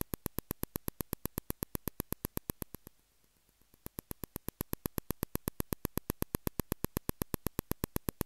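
Rapid, even train of electrical clicks, about eight a second: an infrared receiver sensor wired into a computer's audio input, picking up a smartphone's blinking infrared light. The clicks fade out for about a second near the three-second mark, then return.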